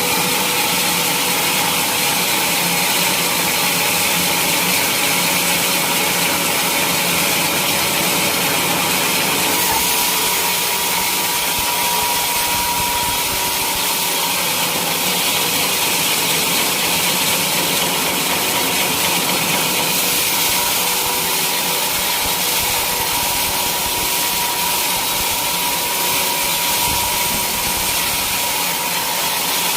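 Sawmill saw cutting through a teak log, running steadily with a loud hiss and a steady whine.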